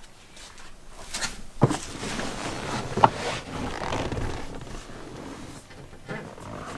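Handling noise: a few light knocks and a rubbing scrape.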